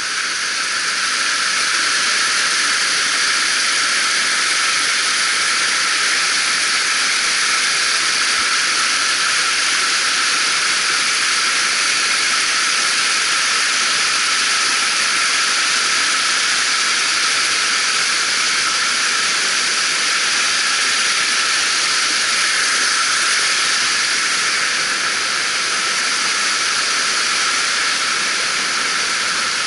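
Steady rush of a rocky mountain stream, water cascading over boulders, an even hiss with no break.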